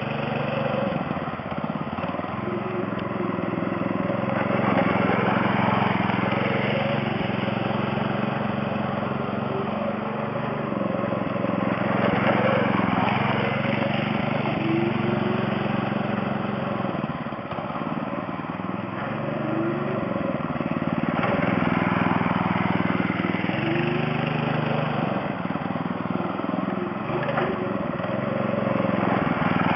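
Go-kart's 6.5 hp Honda-clone single-cylinder four-stroke engine running, its speed stepping up and down and its loudness swelling and fading several times.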